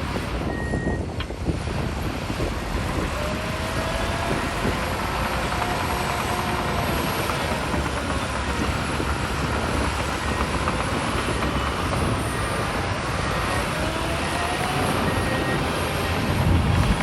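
Heavy diesel earthmoving machinery, a bulldozer with dump trucks, running steadily with the engine note slowly rising and falling under load. A few short high beeps come now and then, and a louder low rumble swells near the end.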